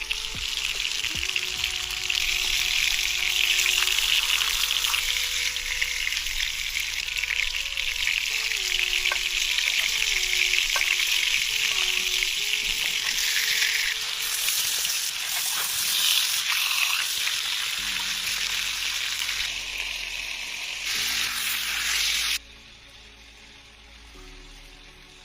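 Food frying in hot oil in a pan: a loud, steady sizzle that cuts off abruptly near the end, with faint background music underneath.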